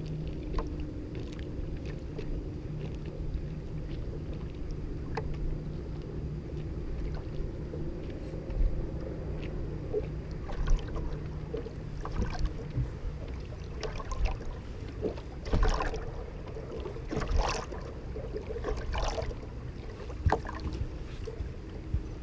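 Water slapping against the hull of a small fishing boat, with several sharp splashes in the second half, over a steady low hum.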